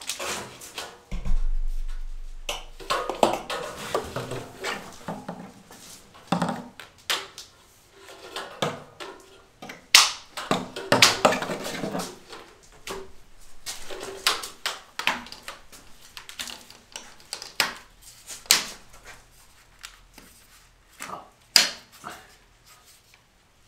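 Plastic conduit pipe being fitted into its ceiling mounting clips: irregular sharp clicks, knocks and short scrapes of plastic on plastic as the pipe is handled and pressed into place.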